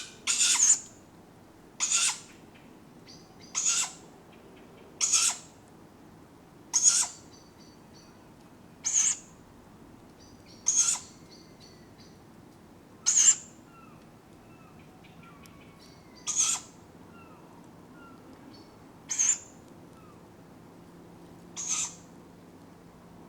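Tawny owlets giving their food-begging call: a short hissing screech repeated about a dozen times, every two to three seconds. Faint songbird calls sound between the screeches.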